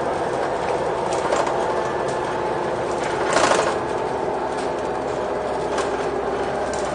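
Renault Agora L city bus running, a steady mechanical drone with a short noisy burst about three and a half seconds in.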